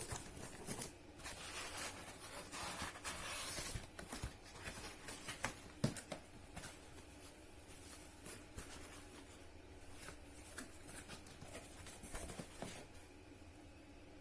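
Hands handling and opening small packaging: irregular rustling, scraping and small clicks, busiest in the first half and thinning out near the end.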